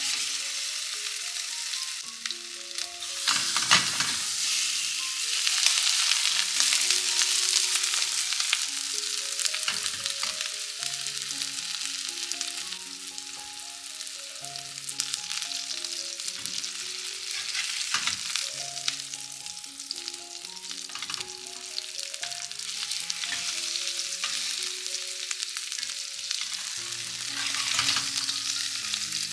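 Food sizzling steadily as it fries in a hot pan, with a few louder surges of sizzle, over soft background music.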